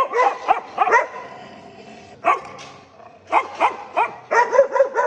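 Dogs barking and yipping in short sharp barks: a quick run at the start, a single bark a little after two seconds in, and a rapid burst of barks in the last two seconds.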